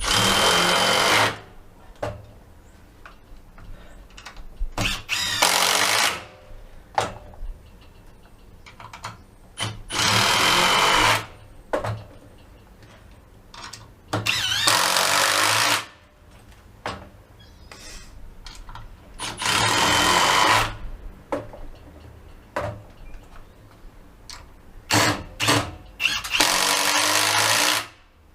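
Two cordless impact drivers, a Milwaukee M18 FUEL Surge hydraulic impact driver and a conventional impact driver, take turns driving 5x70 mm screws. There are six runs of about a second to a second and a half each, with small handling clicks between them.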